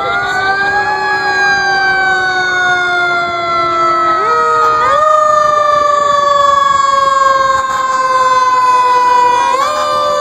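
Fire engine sirens sounding as the engines pass. Several tones rise in the first second, then slowly fall in pitch, jumping back up a few times.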